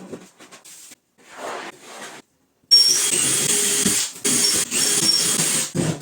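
An electric motor starts running loudly and steadily after a short gap, with a high whine over a hissing whir and two brief dips near the end.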